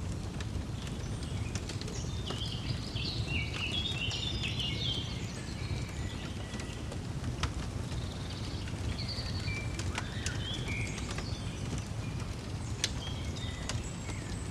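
Small birds chirping in quick, busy phrases, thickest a couple of seconds in and again around ten seconds, over a wood fire crackling with scattered sharp pops and a steady low rumble.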